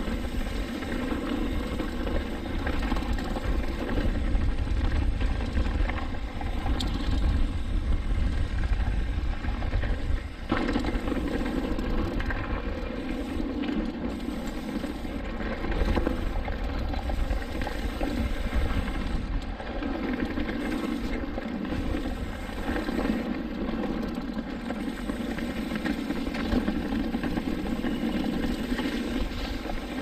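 Mountain bike riding down a dirt singletrack: steady low rumble of wind on the microphone and tyres rolling over dirt and gravel, with an occasional knock from the bike going over bumps.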